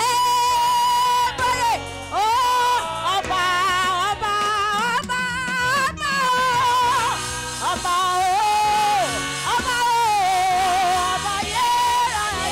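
Gospel choir singing through a PA, a lead voice holding long notes with vibrato over the choir and a low instrumental backing.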